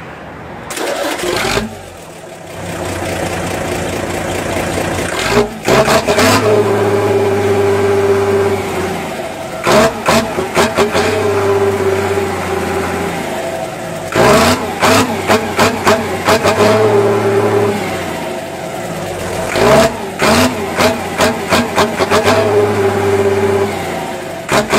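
1983 Dodge D-1211 truck engine revved again and again, heard right at the tailpipe. The revs climb, hold and drop about five times, with crackling from the exhaust at each blip.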